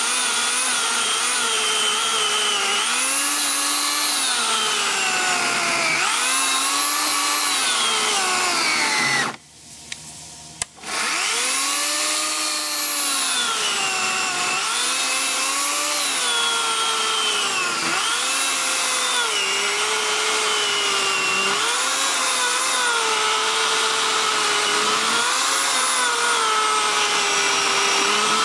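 Makita UC4020A electric chainsaw cutting through a log. Its motor whine sags in pitch each time the chain bites under load and rises again, over and over. About nine seconds in it cuts out for a second or so, then starts again.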